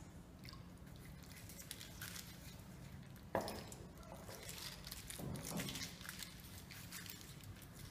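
Faint, soft handling sounds of a hand rubbing cachaça into raw pork belly skin on a foil-lined tray, with one light knock about three seconds in.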